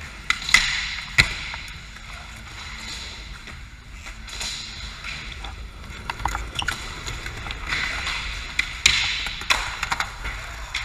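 Skateboards rolling on skatepark ramps, a steady wheel hiss broken by scattered sharp clacks and knocks of boards landing and hitting coping, with a cluster of knocks near the end.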